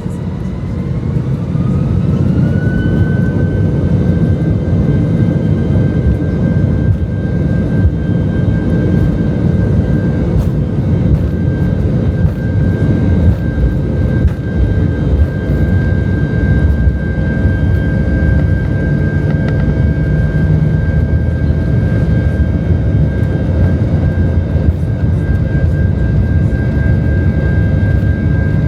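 Airbus A320's IAE V2527-A5 turbofan engines spooling up to takeoff thrust, heard from inside the cabin. Their whine rises in pitch over the first few seconds and then holds steady and loud over the low rumble of the takeoff roll.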